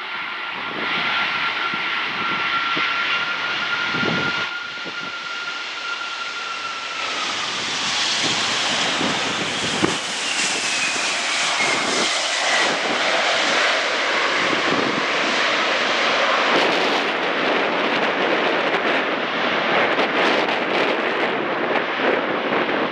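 The four Rolls-Royce RB211 turbofans of a British Airways Boeing 747-400 whine as the airliner lands and passes. The steady whine drops in pitch about seven seconds in, and a second, higher whine glides down a few seconds later. A loud rushing engine roar follows as the jet rolls out along the runway.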